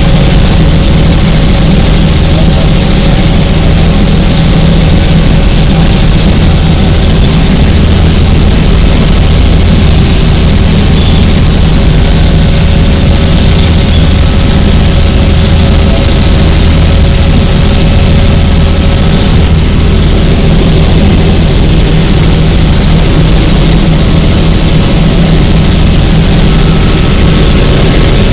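Helicopter engine and rotor running steadily, a loud low drone with a high steady whine above it.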